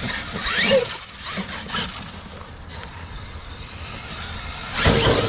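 RC monster truck running on a dirt track, its motor whining up in pitch as it revs. A loud clatter comes near the end.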